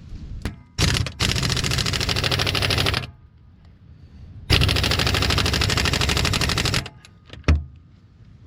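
Impact wrench hammering in two bursts of about two seconds each, tightening bolts on a tracked skid steer's undercarriage, followed by a single sharp knock.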